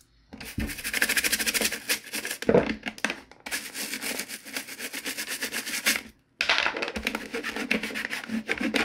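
A toothbrush scrubbing the ridged plastic top of a GE clock radio in fast back-and-forth strokes. The scrubbing stops briefly about six seconds in, then the rubbing resumes as a cloth wipes the surface.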